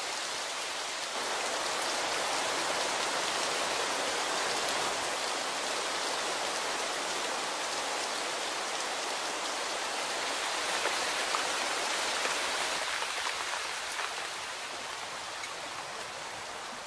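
Heavy rain falling and rainwater streaming down bare granite rock faces: a steady hiss that swells about a second in and eases off toward the end.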